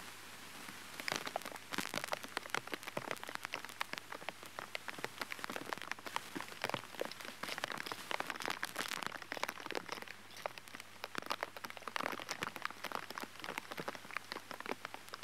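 Rain falling steadily, a dense irregular patter of drops ticking on water and wet surfaces.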